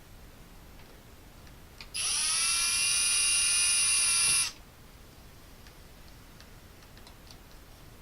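Electric drill-driver spinning up and running at a steady high speed for about two and a half seconds, then stopping abruptly.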